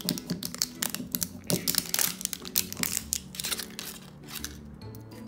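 Wrapper of an L.O.L. Surprise toy ball crinkling and tearing as it is peeled open by hand, in quick crackles that thin out near the end, over background music.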